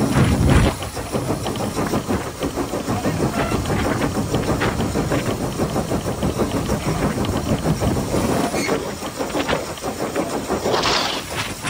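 LSWR T3 class 4-4-0 steam locomotive No. 563 running under steam, its exhaust beating in a fast steady rhythm, heard from on the engine itself. A louder hiss comes in near the end.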